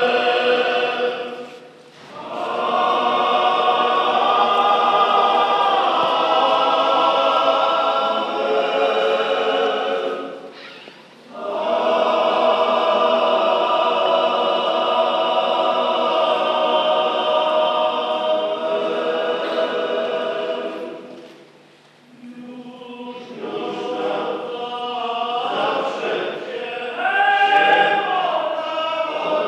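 A choir singing a slow church hymn in long held phrases, with short pauses between phrases about two, eleven and twenty-two seconds in; the singing becomes more broken near the end.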